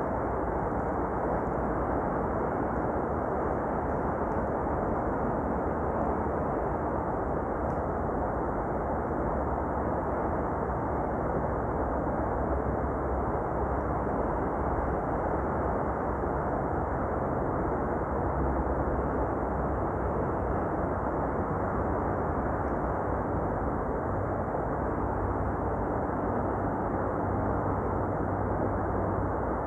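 Steady noise of wind on the microphone mixed with sea waves washing against the seawall, an even rumble with no distinct events.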